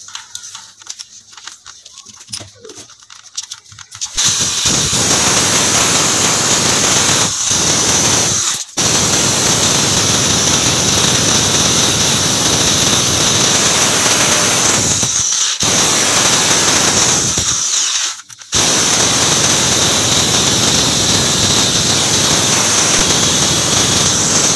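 Corded hammer drill with a half-inch masonry bit boring into ceramic wall tile and the brick behind it. It runs loud and steady from about four seconds in, with a few short stops between bursts, after some faint handling clicks at the start.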